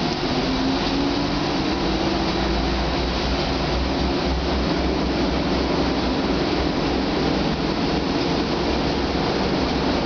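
Cabin noise inside a Siemens Combino Be 6/8 low-floor tram under way: a steady rumble of wheels on rails and running gear. In the first couple of seconds a faint whine rises slightly in pitch.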